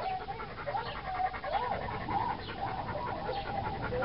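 A dog whining in a run of wavering, rising and falling whimpers, with panting, over low wind rumble on the microphone.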